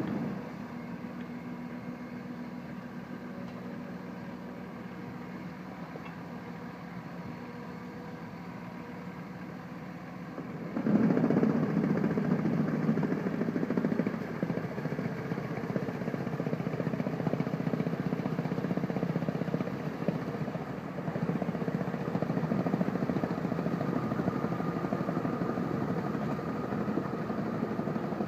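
Truxor amphibious vehicle's engine running steadily, then getting suddenly louder and rougher about eleven seconds in and staying that way.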